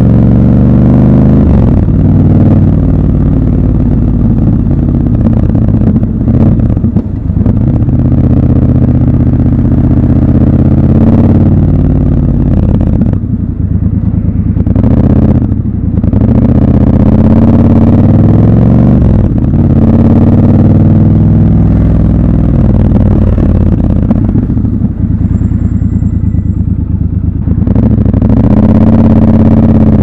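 Triumph Scrambler 1200 XC's 1200 cc parallel-twin engine running under way, its pitch rising as it accelerates and dropping at gear changes and when the throttle is eased off, several times over.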